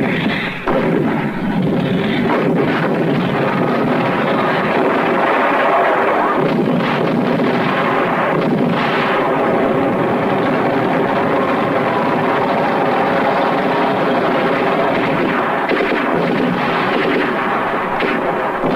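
Battle sound effects from a war film: dense artillery fire and gunfire, a continuous loud din of shots and blasts without pause.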